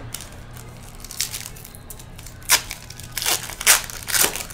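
A foil trading-card pack wrapper being torn open and crinkled by hand, in a string of short crackling rips, the loudest a little past halfway and again near the end.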